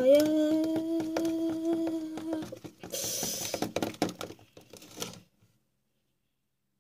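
A voice holds one steady note for about two seconds. A short hiss follows, then a few small clicks and knocks, and the sound cuts off completely a little after five seconds in.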